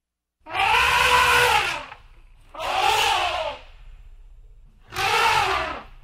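Elephant trumpeting three times, each call a harsh blast of a second or so that rises and falls in pitch, over a low rumble.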